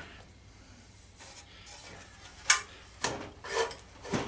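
Sheet-metal case of a golf cart battery charger being handled and shifted on a workbench. There is a light scrape, then a few short metal clunks and knocks in the second half.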